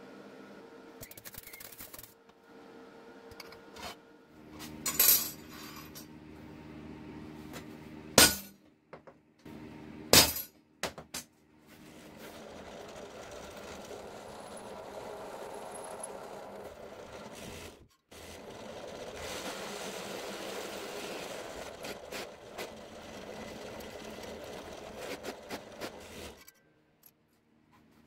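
Bench drill press running as a small bit drills through a piece of an old metal spoon, then a countersink bit chamfers the hole, in two long steady stretches. Three sharp, loud clanks come before the drilling.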